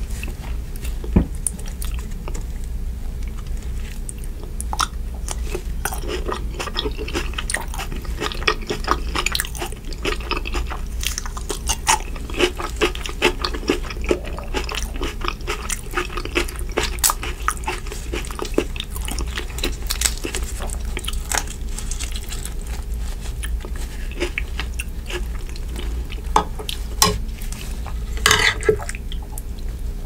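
Wet squelching and dripping as saucy shrimp are handled with gloved hands in a glass dish of seafood-boil butter sauce, with a metal spoon scraping and clinking against the glass. Many short clicks and crackles run over a steady low hum.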